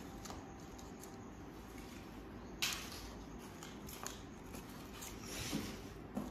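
Faint handling noises as paper flowers are picked up and moved off a tabletop, with one sharp tap about two and a half seconds in and a few lighter ticks after it.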